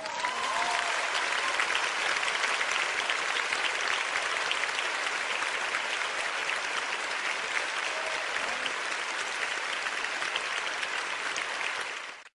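Theatre audience applauding at the end of a ballet performance: dense, steady clapping that cuts off suddenly at the end.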